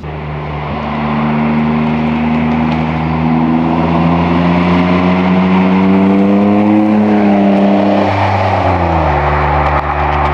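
BMW M52B28 2.8-litre straight-six in an E30, breathing through its new stainless exhaust with two catalysts and two silencers, pulling under steady acceleration with its pitch rising slowly for about seven seconds. Then the engine note falls over about two seconds as the throttle eases and holds a steady lower note.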